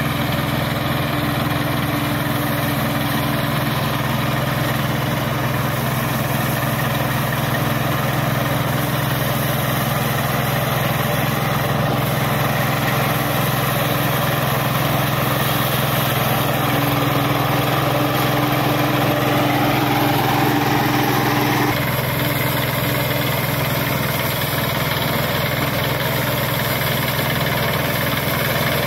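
Kirloskar combine harvester running steadily with a constant engine drone and machinery hum; about three quarters of the way through, one of the steady tones drops out and the sound shifts slightly.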